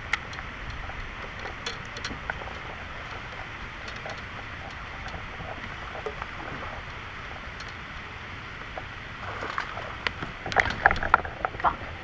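Steady rush of wind and water noise on a kayak-mounted camera microphone while a hooked bass is reeled in, with scattered faint clicks. About ten seconds in comes a quick flurry of louder sharp splashes and clicks as the fish fights close to the kayak.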